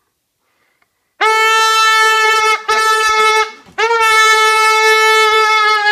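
A loud horn-like tone held at one steady pitch, sounded three times after about a second of silence: a long blast, a short one, then another long one.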